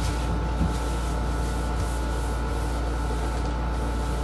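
Room air conditioner running with a steady hum and hiss, and a paper towel rubbing in strokes over a hardened epoxy resin surface.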